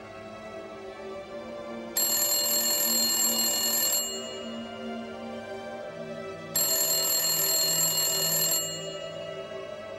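A telephone ringing twice, each ring about two seconds long and starting and stopping sharply, over soft ambient music with sustained low tones.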